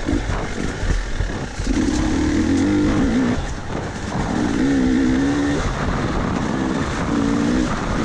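KTM 300 two-stroke dirt bike engine under way on rocky single track, the throttle opened and eased off in three pulls of a second or so each. Wind rush and knocks from the bike bouncing over the rocks come through underneath.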